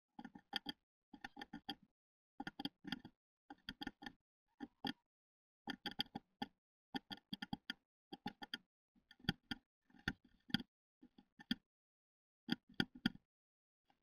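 A tit pecking at the wood of a nest box around the entrance hole: quick runs of sharp taps, about ten bursts of several taps each, with short pauses between.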